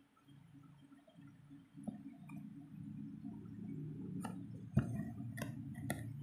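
Handling noise as a painted bottle is moved and turned by hand: a low rumble that builds up, with a few sharp knocks near the end, the second of them the loudest.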